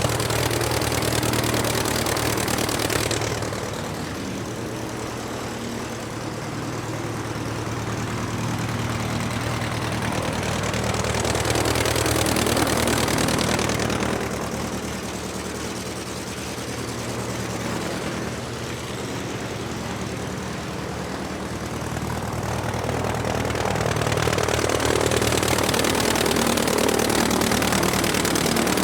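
Aircraft engine running steadily with a low, even hum. Three times the sound swells louder and brighter for a few seconds: near the start, around the middle and near the end.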